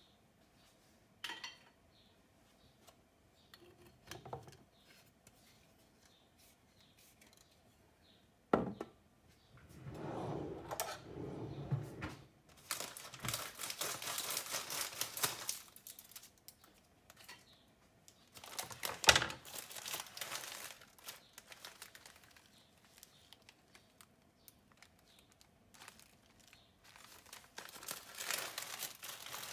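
Plastic wrapping of a packet of ladyfinger biscuits being handled and opened, crinkling in bursts, with a sharp knock about a third of the way in and a loud click about two-thirds in.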